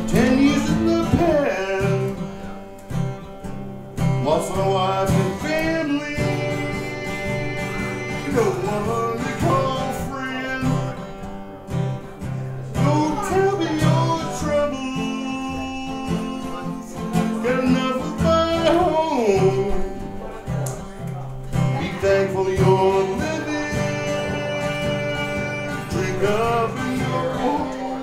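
Live acoustic band playing a country-style song: strummed guitar with a melody line that bends between notes in phrases every few seconds.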